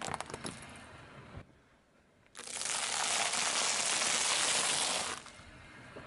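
A car tyre pressing on a flexible metal shower hose gives scattered clicks and crackles at the start. After a short lull comes a loud, dense crunching and crackling for about three seconds as the tyre crushes a heap of popcorn, then it stops.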